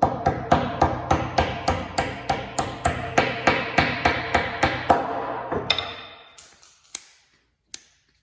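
Hammer driving a steel pivot pin into a half-inch steel plate, about three ringing metal blows a second, then a few single taps before it stops. The pin goes in tight enough that it needs no set screw.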